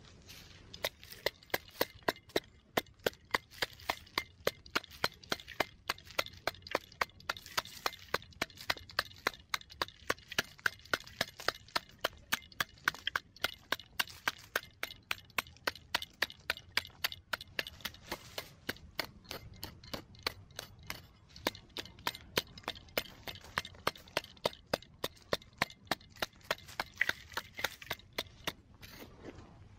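Folding shovel chopping into hard, dry, stony soil and scraping it out, in a steady run of sharp strikes at about three a second.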